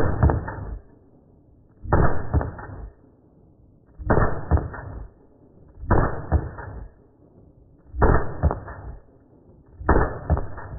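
Six shots from a 2011 pistol, fired as a rapid string and played back in slow motion: six deep, drawn-out booms about two seconds apart.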